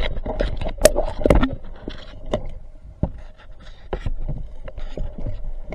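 Underwater audio from a diver's camera: irregular sharp clicks and knocks, densest in the first second and a half, over a faint steady hum.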